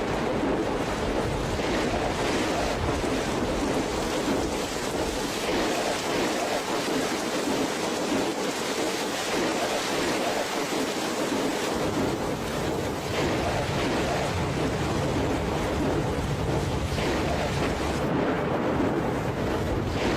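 Steady, even rushing of fast-flowing water, with no breaks.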